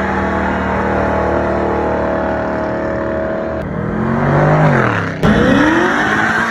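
Hot rod engine held steadily at high revs during a burnout, wheels spinning. After a sudden cut, a second vehicle's engine revs as it accelerates, its pitch falling and rising a few times.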